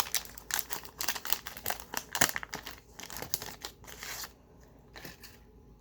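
The wrapper of a 1987 Fleer baseball card pack being torn open and crinkled by hand, a dense run of crackling for about four seconds before it goes quieter.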